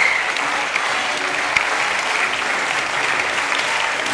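Crowd of spectators clapping steadily to urge on a climber mid-route, with a brief whistle right at the start.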